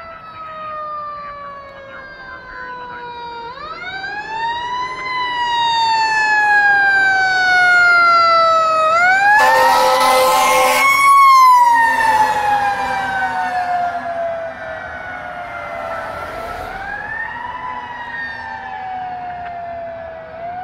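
Fire engine siren wailing in repeated sweeps, each a quick rise and a long fall, louder as the truck approaches. About two seconds of horn blasting sound with the siren where it passes and is loudest. The siren then carries on more faintly as the truck drives away.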